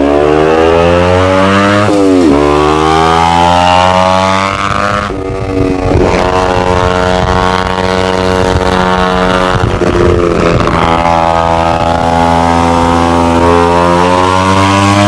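Kawasaki Ninja 250R parallel-twin engine through a Two Brothers aftermarket exhaust, accelerating. The revs climb twice in the first five seconds, each climb cut off by a gear change. Then the engine pulls at a fairly steady pitch, with another shift about ten seconds in.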